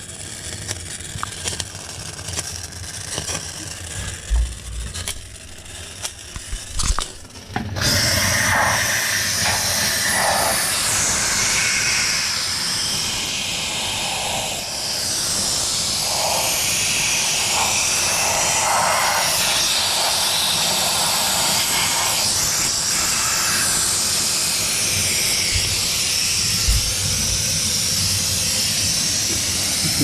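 A handheld steam cleaner jets steam onto a refrigerator's iced-up evaporator coil to melt the frost off. There is a loud, steady hiss that starts abruptly about 8 seconds in, after a quieter stretch with a few knocks.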